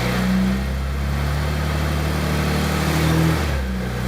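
Holden VZ Commodore's engine running under light throttle as the car is driven up onto ramps, with a small shift in pitch a little after three seconds in.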